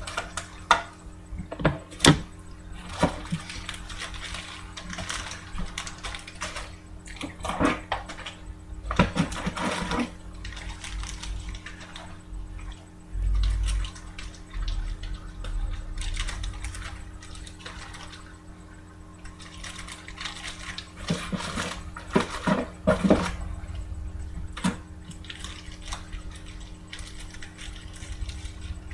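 Scattered light clicks and knocks of cards and small objects being handled at a desk, with a dull low thump partway through, over a steady low electrical hum.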